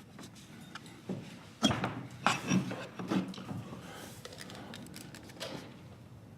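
Knocks and rubbing scrapes from hands handling an iMac's power cable and plug at the back of the computer. The loudest knocks come between about one and a half and three and a half seconds in.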